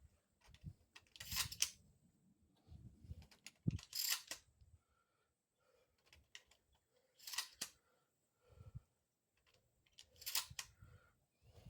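Mossberg 500 12-gauge pump-action shotgun firing Winchester 8-shot shells: four shots about three seconds apart, with quieter clacks of the pump between them.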